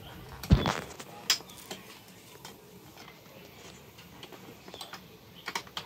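A dull thump about half a second in, then scattered light clicks and taps from a caravan awning's anti-flap kit as it is clipped down onto the awning.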